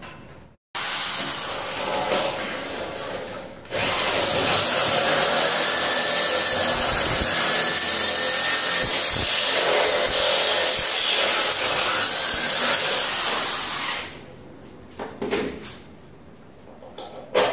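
Corded electric drill boring a hole through a tubular metal door jamb. It makes a shorter, lighter run, then a loud, steady run of about ten seconds that stops near the end, followed by a few light knocks.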